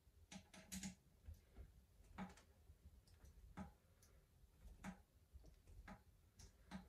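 Faint, sharp clicks of small parts and tools being handled during bike assembly: a quick cluster near the start, then single clicks about every second and a bit.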